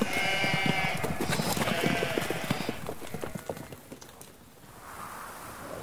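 Sheep bleating over a clatter of hoofbeats, as a sound effect in a radio drama. The bleats and hoofbeats fade out about three to four seconds in.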